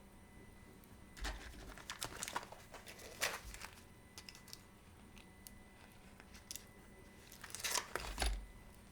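Handling noises at a watch repair bench: irregular rustling and crinkling with small clicks, in two spells, the first about a second in and a shorter one near the end.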